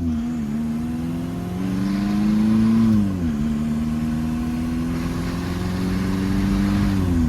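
Volkswagen 1.9 TDI four-cylinder turbodiesel car accelerating hard through the gears: the engine note climbs steadily, drops sharply at a gear change about three seconds in, climbs again and drops at another shift near the end.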